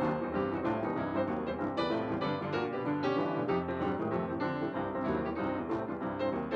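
Background music led by piano, with a quick run of notes throughout.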